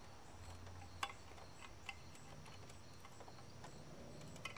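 A few faint, isolated clicks and light taps, one sharper than the rest about a second in, as a screwdriver is worked under the rubber anode cap on a CRT television's picture tube to pry it off.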